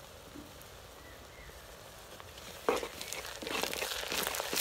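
Curry leaves going into hot oil with frying shallots: a sudden splutter about two-thirds of the way in, then crackling and sizzling that grows louder.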